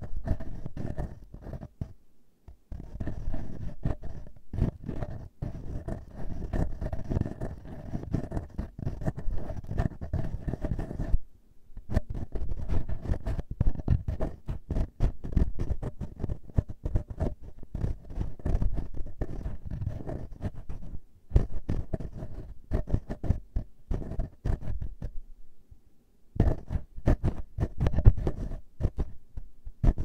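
Fingertips and nails rubbing and scratching directly on a handheld recorder's metal mesh microphone grille in fast, irregular strokes, close and loud. It stops briefly three times: about two seconds in, around eleven seconds and around twenty-five seconds.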